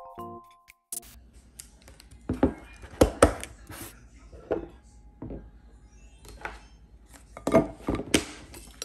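Light clinks and knocks of ceramic plates and a glass food-storage container being handled as bread slices are set out, the loudest about three seconds in and near the end. A short chiming music jingle ends about a second in.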